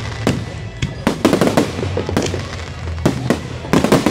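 Aerial firework shells bursting: a rapid, irregular series of sharp bangs, about two a second.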